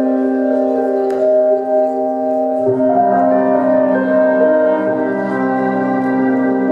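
Recorded music playing: sustained keyboard chords with no clear beat, moving to a new chord about two and a half seconds in.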